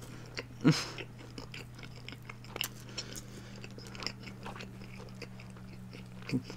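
Close-miked chewing of food, with many small wet mouth clicks. A louder mouth noise comes about two-thirds of a second in and another near the end, over a steady low electrical hum.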